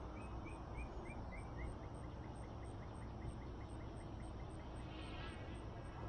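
Outdoor ambience in an open field: a steady low rumble, a chirp repeated about three times a second that fades away over the first few seconds, and a faint high ticking about five times a second. A brief higher call comes near the end.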